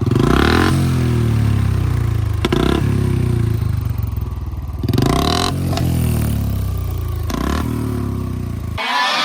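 Motorcycle engine running while riding, with a few louder surges about every two and a half seconds as it is revved. The engine sound cuts off suddenly near the end.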